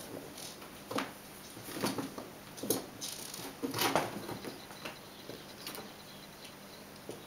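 Kittens playing: irregular scrabbling, scratching and light knocks of paws and claws on a cardboard play box and floor, about one every second, loudest around four seconds in.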